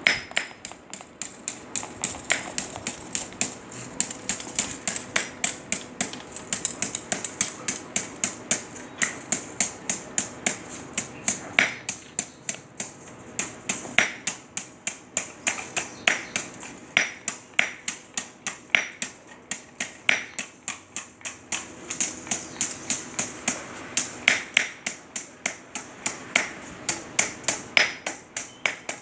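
Sharp knocks, about three a second with short pauses, as the cut-open electric water heater element is struck to shake out its powder filling and inner wire coil.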